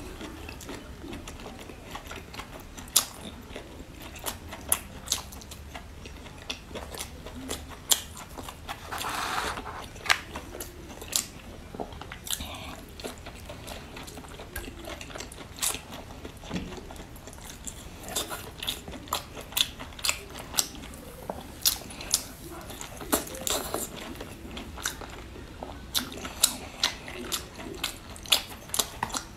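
A woman biting and chewing whole octopus in a spicy sauce: wet mouth clicks and smacks come irregularly all through, with a longer hiss about nine seconds in.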